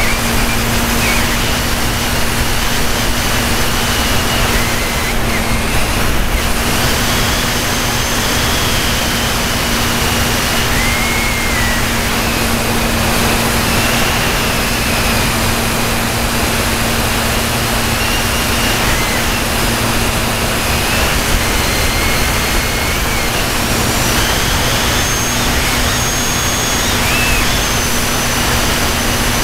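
Constant wind rush and the steady drone of a radio-control model airplane's motor and propeller, heard from a camera riding on the plane in flight. A low hum runs under the rush, with a faint high whine that wavers in pitch.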